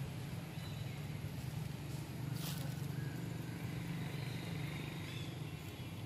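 A steady low hum, with one short rustling or crunching sound about two and a half seconds in.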